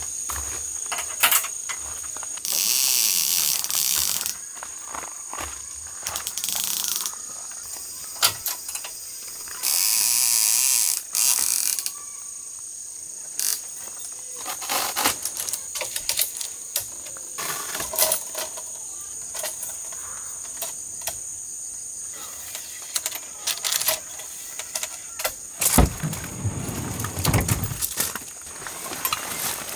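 Nylon car awning being handled over a roof rack: loud bursts of fabric rustling, each a second or two long, with scattered clicks and knocks, over a steady high insect drone. Near the end a deeper rumble lasts about two seconds.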